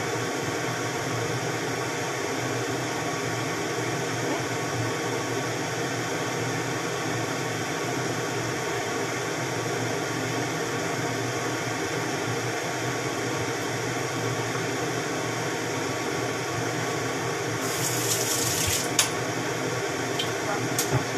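Pansit noodles sizzling steadily in a frying pan, over a steady background hum. A short, sharper hiss comes about three-quarters of the way through.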